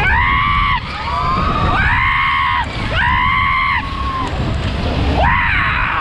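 Riders on a Matterhorn fairground ride screaming, four long held cries one after another, over wind rushing across the microphone as the cars swing round the track.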